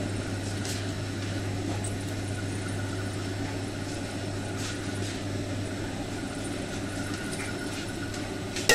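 Steady low hum and even whoosh of kitchen equipment running. Right at the end a stainless steel mixing bowl clanks with a brief metallic ring.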